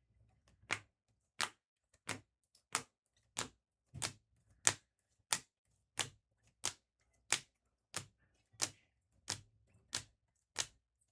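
A steady run of about sixteen sharp, dry clicks, evenly spaced at about three every two seconds.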